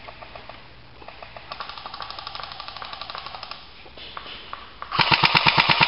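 Airsoft electric guns firing on full auto: a rapid two-second burst starting about a second and a half in, then a louder, closer burst of about a second near the end.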